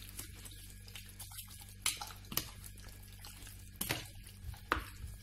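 A fork stirring raw chicken pieces coated in oil and spices in a plastic bowl: wet squelching broken by a few sharp clicks.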